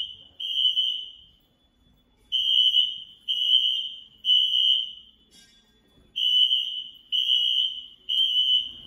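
Building fire alarm sounding the temporal-three evacuation pattern: high-pitched beeps in groups of three, each group followed by a pause of about a second and a half. The alarm was set off by a faulty pull station.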